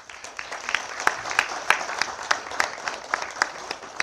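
Audience applauding: many people clapping, building up over the first second and then going on steadily.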